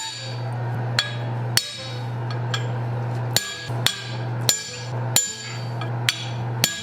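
Hand hammer striking a marking tool on a cold steel bar, laying out where the nose of a forged head will go: about ten sharp, ringing metallic blows at an uneven pace. A steady low hum runs underneath.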